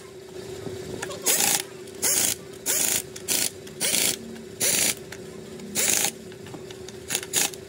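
Metalworking in a workshop: a machine running with a steady hum, while about nine short, noisy tool strokes come at uneven intervals.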